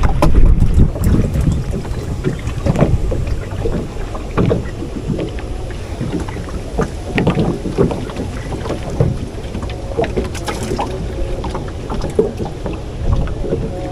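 Wind rumbling on the microphone over a small wooden boat on the water, with scattered knocks and clicks from hands handling fishing gear and bait on the deck.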